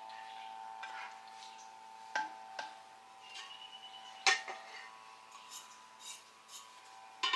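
Metal cooking pots and utensils clinking: a few sharp separate knocks, the loudest a little over four seconds in, over a faint steady hum.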